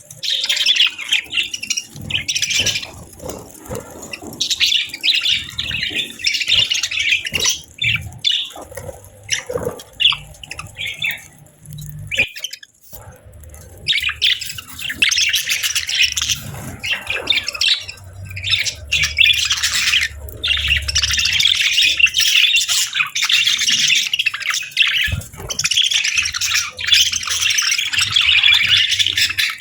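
Budgerigars chirping and chattering in dense, rapid bouts with short squawks, broken by a brief lull about twelve seconds in.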